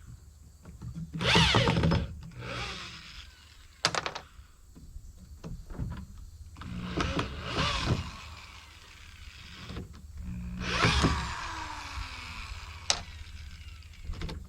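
Tool work on an old wooden barn door being taken apart: three bursts of squealing, sliding-pitch noise, with a couple of sharp knocks between them.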